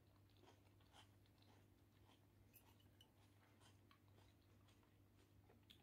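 Near silence with faint chewing and crunching of a pineapple, tomato and lettuce salad, a scatter of soft clicks over a low steady hum.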